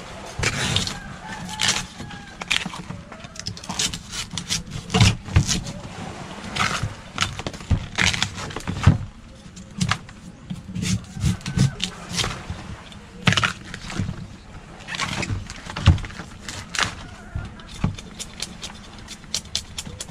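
A knife cutting and stripping the tough outer sheaths off a fresh bamboo shoot: many crisp cracks, snaps and scrapes at an irregular pace as the blade splits and tears the fibrous husk.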